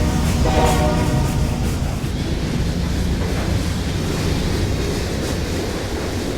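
BNSF container train: a short last blast of the locomotive's air horn in the first second or so, then the steady rumble and rattle of the train's cars rolling past.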